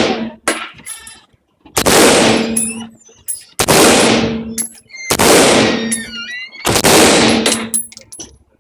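AR-15 rifle in .223 firing four single shots at an even pace, about one and a half to two seconds apart, each shot followed by a long decaying tail.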